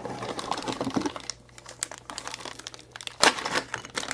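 Plastic packaging crinkling while small plastic Play-Doh tools and molds are handled, with light clicking throughout and one sharper click about three seconds in.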